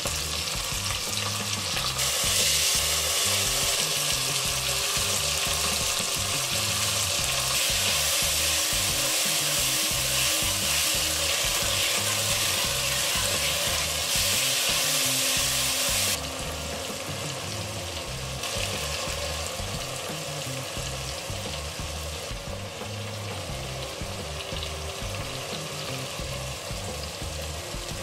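Chopped garlic, whole spices and diced tomatoes frying in hot oil in a saucepan, a steady sizzle with stirring. The sizzle grows louder about two seconds in and drops back a little past halfway. Faint background music sits underneath.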